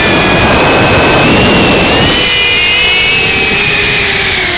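FPV quadcopter's electric motors and propellers whining, the pitch rising and falling as the throttle changes, with rumbling prop wash and wind noise in the first half.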